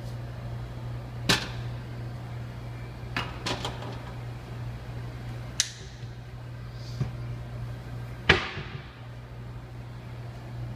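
A handful of sharp clanks and knocks of parts being handled during espresso machine cleaning, the loudest about eight seconds in with a brief ring, over a steady low hum.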